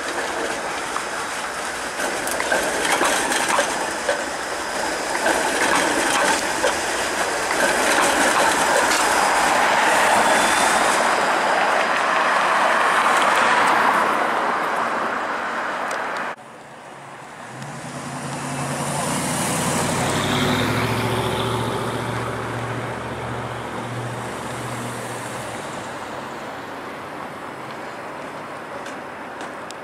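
Toronto Flexity Outlook low-floor streetcar passing on street track, steel wheels running on the rails with scattered clicks over the track joints, swelling then easing off. About halfway through the sound cuts off abruptly, then another Flexity streetcar moving through the loop comes up with a low steady hum and fades.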